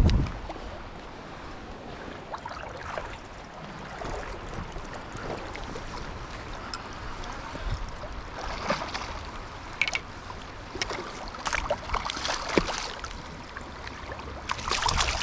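A hooked steelhead splashing in the river shallows as it is brought to a net, over the steady rush of the stream. A low thump at the very start; the splashing comes thicker from about eight seconds in and gets loudest near the end.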